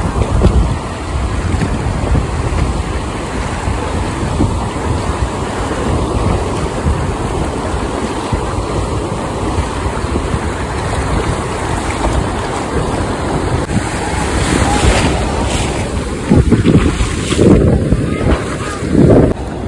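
Ocean surf and shallow wash running up the sand, heavily buffeted by wind on the phone's microphone. Toward the end the swash comes close in a few louder surges.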